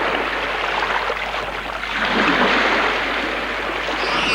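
Steady rushing noise, swelling slightly about two seconds in.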